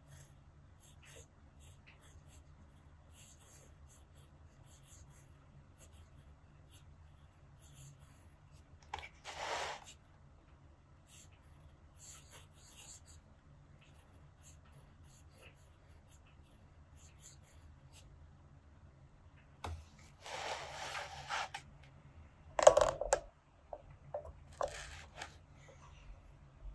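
Nahvalur Nautilus fountain pen's double broad steel nib scratching faintly across paper in many short strokes as letters are written. Two longer swishes come about nine seconds in and again near twenty seconds, and a few sharp knocks come near the end.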